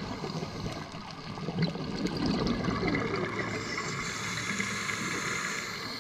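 Scuba divers breathing through regulators underwater: exhaled bubbles gurgling, giving way about halfway through to a steady higher hiss.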